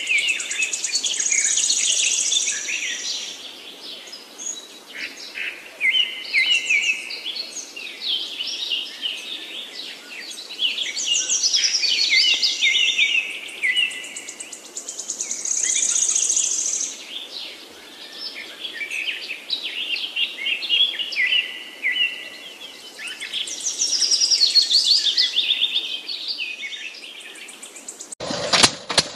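Birds chirping and trilling, in phrases that come and go. About a second before the end, the small model engine driving the mini water pump starts with a rapid, even knocking.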